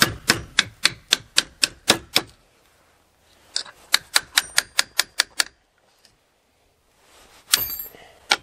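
Hammer tapping a steel pin punch to drive a pin out of a chainsaw brake part set on a steel block: two runs of quick, sharp metal strikes, about four a second, with a short pause between them and a brief clatter near the end.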